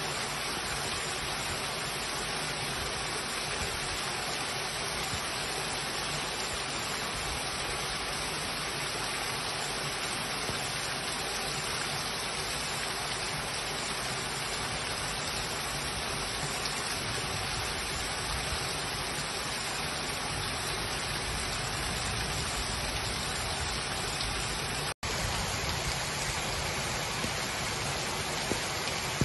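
Heavy rain pouring down: a steady, dense hiss, with a momentary break near the end.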